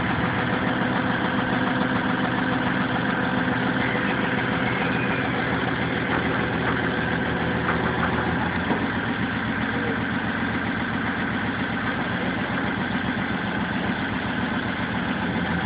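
Hitachi excavator's engine running steadily at a low speed, its note shifting slightly about nine seconds in.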